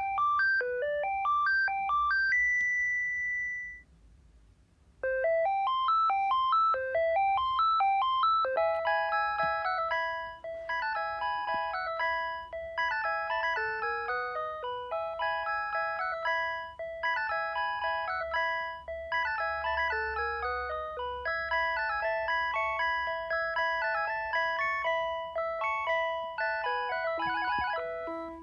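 Panasonic handset playing its built-in electronic ringtones: a tune of quick note runs ends in a held high beep, then after a short pause about four seconds in, another ringtone starts with rising runs and goes on as a multi-voice melody over a held note.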